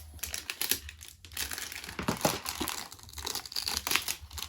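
Plastic packaging of an LOL Surprise toy crinkling and rustling in an irregular run of crackles as it is handled and cut open.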